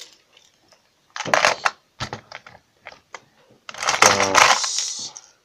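Irregular clicking and clattering of hard plastic and metal, with a denser spell of rattling near the end: wobbler lures with treble hooks being handled while the next lure is taken from a tackle box.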